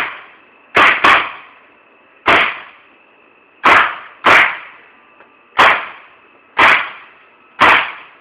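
Tippmann 98 Custom paintball marker fired nine times in semi-auto, single sharp shots at uneven intervals about a second apart, each with a short fading tail.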